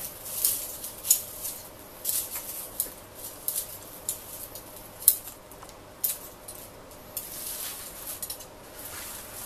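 Scissors snipping through tough, dry lemongrass stalks and leaves on a plastic cutting board: crisp cuts about every half second to a second, thinning out after about six seconds into softer rustling of the cut grass.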